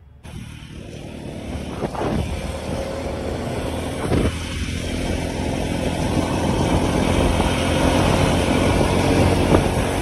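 Motorcycle ride heard from the pillion seat: the engine running and road and wind noise rushing over the microphone, growing louder over the first few seconds and then holding steady.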